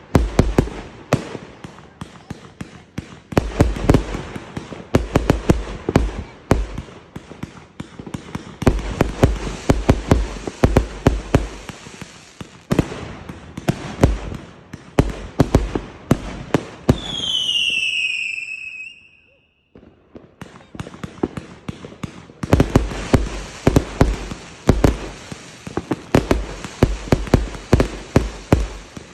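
Fireworks going off in a dense run of rapid crackling bangs. About two-thirds of the way through, a whistle falls in pitch, followed by a short lull before the crackling starts again.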